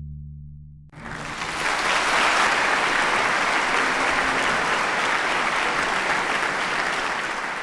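The estudiantina's last chord on guitars and other plucked strings rings out and stops sharply about a second in, then an audience applauds steadily.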